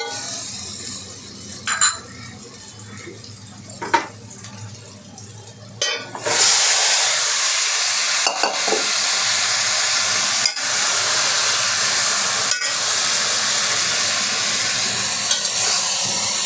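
Spoon stirring and tapping in a pot of frying onions and ginger-garlic paste, then about six seconds in a loud sizzle breaks out as marinated chicken goes into the hot oil. The sizzle then runs steadily, with occasional clinks of the spoon on the pot.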